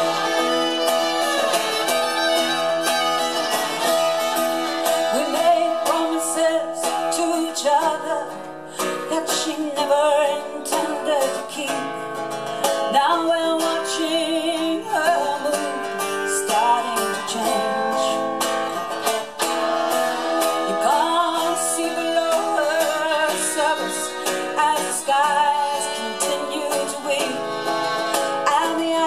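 Live acoustic folk music: a fiddle and an acoustic guitar playing together, with a woman singing.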